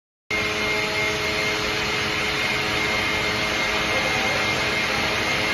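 Reignmac RMS400 multi-rip saw running: a steady mechanical noise with an even, high whine. It cuts in abruptly just after the start.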